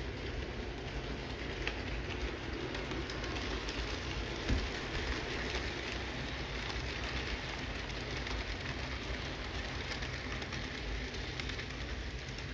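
Model train running on sectional track: a steady whir of motor and wheels with many small clicks over the rail joints, swelling as the cars pass close by mid-way. A single sharp knock comes about four and a half seconds in.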